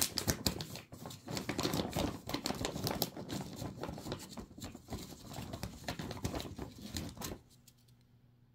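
Plastic treat bag crinkling and rustling in quick, irregular crackles as a rawhide chew bone is pulled out of it; the crackling stops suddenly about seven seconds in.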